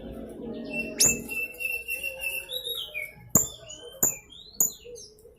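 Young blue-crowned hanging parrot (serindit) calling: a sharp high chirp about a second in, a run of short high notes, then three loud sharp calls about half a second apart.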